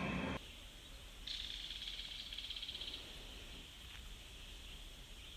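Background music cuts off just under half a second in, giving way to faint outdoor ambience. A high, rapidly pulsed animal trill sounds for about a second and a half, then stops.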